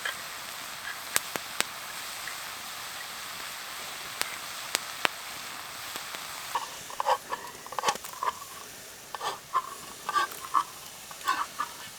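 Campfire crackling over a steady hiss, with a few sharp pops. From about halfway through comes a busy run of short knocks and scrapes.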